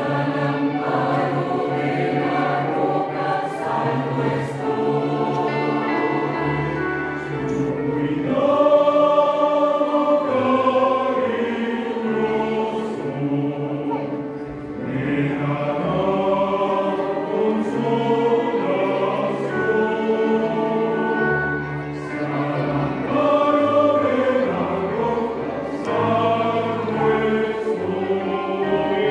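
Mixed choir of men's and women's voices singing a Spanish hymn in several parts, accompanied by an electric piano.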